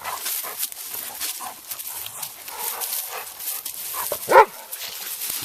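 A dog barks once, loudly, about four seconds in, during rough play between dogs.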